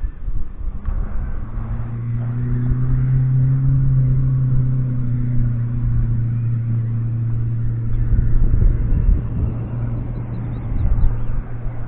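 A distant engine drones at a steady low pitch, swelling and then fading over several seconds, with wind rumbling on the microphone.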